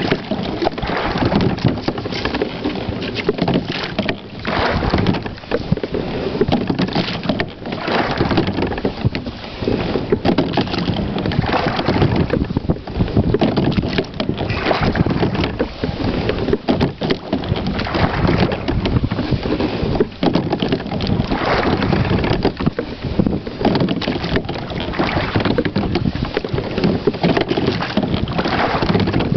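A Whitehall Spirit Solo 14 being slide-seat rowed with carbon-fibre oars: the blades splash and pull through the water in a slow, even stroke rhythm, a swell every three to four seconds, over a constant rush of water along the hull and wind on the microphone.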